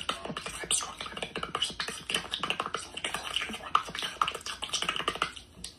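Rapid, dense run of wet clicks and squelches from a glossy blue slime-like blob being handled, stopping shortly before the end.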